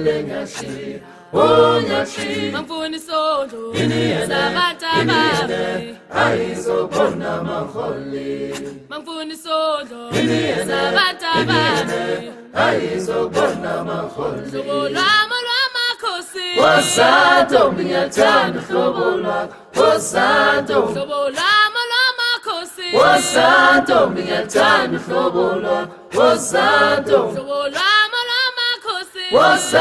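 A choir singing a cappella: several voices in harmony, in sung phrases with short breaks between them.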